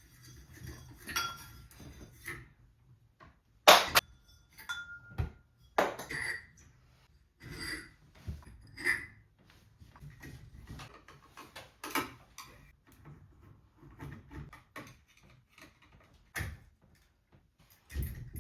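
Irregular clinks, clicks and knocks of small hard fan parts being handled and unfastened as a ceiling fan is taken down. The loudest sharp knock comes about four seconds in, and a short ringing ping comes about a second later.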